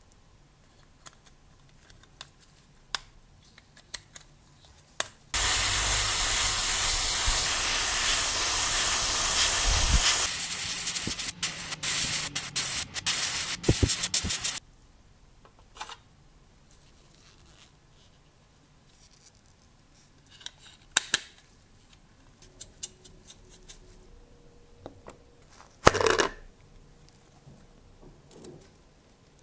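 Airbrush spraying paint onto a small model part. It gives a steady hiss for about five seconds, then a string of short spurts that stop about two thirds of the way through. Faint clicks of parts being handled come before and after, with a brief sharp sound near the end.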